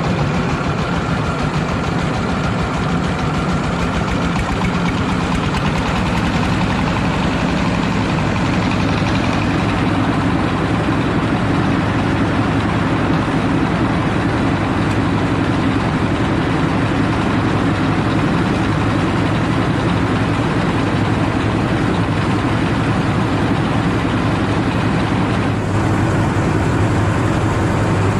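Diesel engine and mobile rice-hulling machine running steadily, a dense mechanical noise over the engine's low hum, with a brief dip near the end.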